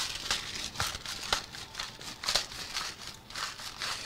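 Wet shrimp frying in butter in a hot pan, with irregular crackles and pops.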